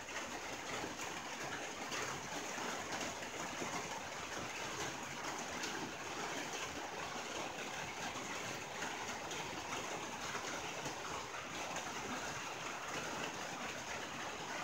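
Rain pattering steadily on a tin roof: a dense, even patter of many small drops striking sheet metal.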